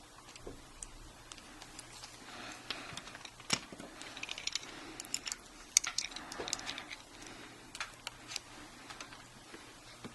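Scattered small clicks and light scrapes of hands working on a laptop hard drive, fitting its mounting bracket and holding pins onto the new solid-state drive. There is a sharper click about three and a half seconds in and another near six seconds.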